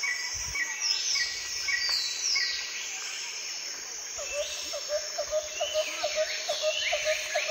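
Several birds calling and singing: short chirps repeated about twice a second and high whistles sweeping downward, joined about four seconds in by a lower note repeated about four times a second.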